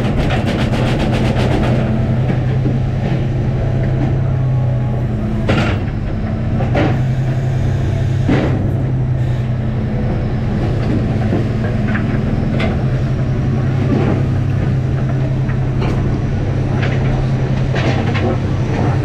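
A crab fishing boat's engine and deck hydraulics running with a steady drone. A fast metallic clatter in the first second or so and scattered sharp metal clanks on deck come through over it.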